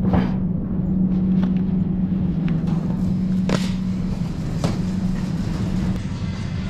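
A camper van being driven, heard with a steady low engine and road drone and a few short knocks.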